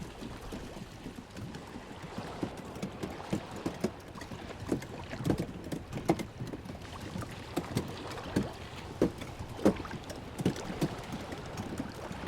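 Small waves lapping and slapping against the side of a floating boat or raft: irregular short splashes and knocks, several a second, over a low wash of moving water.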